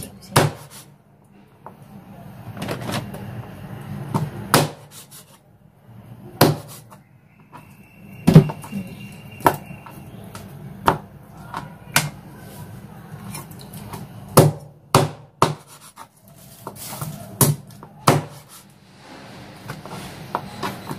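Kitchen knife chopping raw chicken into small pieces on a plastic cutting board: sharp, irregular chops striking the board, about fifteen of them. A faint steady low hum runs underneath.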